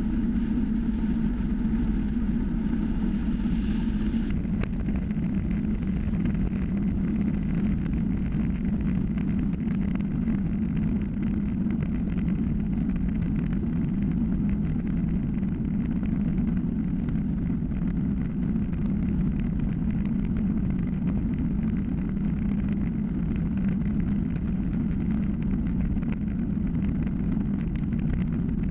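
Steady low rumble of wind and tyre road noise from a time-trial bicycle rolling at speed on asphalt, picked up by a GoPro Hero3 mounted on the bike. A faint high whine sits over it for the first few seconds and cuts off suddenly about four seconds in.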